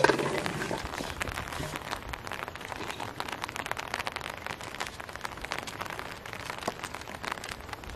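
A small fish dropped into a metal basin of shallow water: a sharp splash and clank right at the start, with a short ring. After it, a steady patter of small crackling clicks continues.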